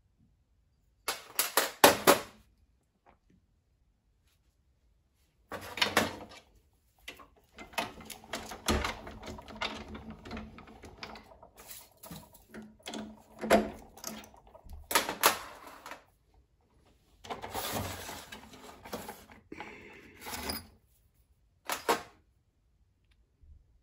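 Hand brushing aluminium drilling chips off a drill press table, the chips rattling and clinking down onto the metal base in several separate bursts, the longest and busiest in the middle.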